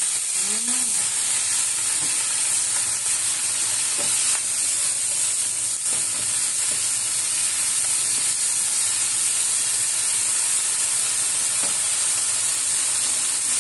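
Food frying in oil in a pan: a steady sizzle, with a few faint clicks.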